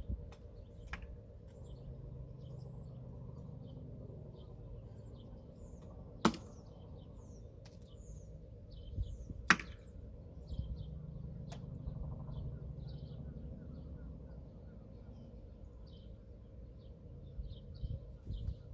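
Small birds chirping repeatedly in the background, with two sharp knocks a few seconds apart near the middle and a low rumble of handling or wind noise underneath.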